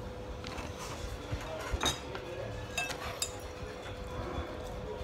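Wooden chopsticks clinking and scraping against a metal tray of fried noodles as they are picked up, a few light clinks spread through, the loudest about two seconds in.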